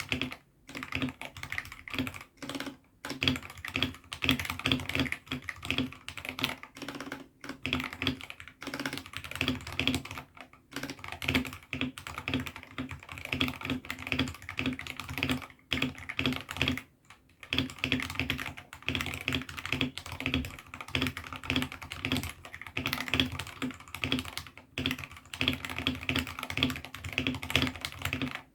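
Mechanical keyboard fitted with AKKO Sakura switches being typed on fast and steadily, a dense run of keystroke clacks broken by a few brief pauses.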